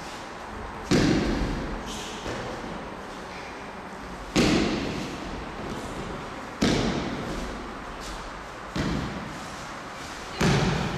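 Bodies thrown onto tatami mats in martial-arts practice: repeated heavy thuds of breakfalls, five loud ones about two seconds apart and a softer one, each with a short ring in the large hall.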